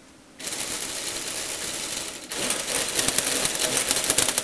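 Lego Technic plastic gear train driven by an electric motor starting up about half a second in and whirring steadily. About two seconds in it gets louder and turns into a fast rattle of clicks as the gears mesh at a different ratio in the rotary gear change.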